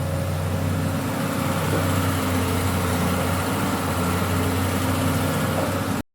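Excavator diesel engine running steadily with a low hum. It cuts off abruptly near the end.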